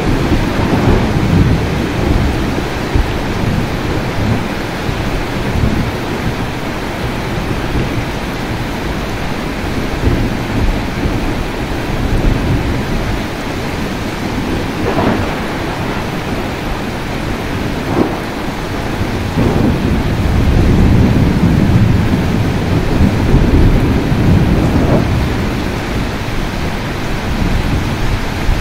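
Rain falling steadily, with rolling thunder. Deep rumbles swell near the start and again about two-thirds of the way through, and a few short cracks come in between.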